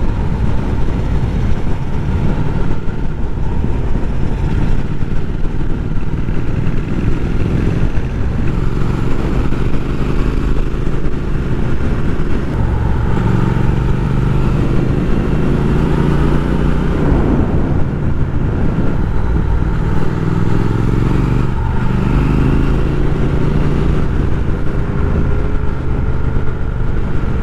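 Triumph parallel-twin motorcycle running on the road, heard from the bike itself, its engine note climbing in pitch several times as it accelerates through the gears.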